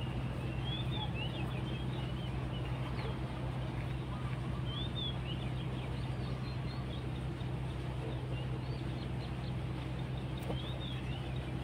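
Small birds chirping: short, high, gliding chirps in little clusters about a second in, around three and five seconds in, and near the end, over a steady low hum.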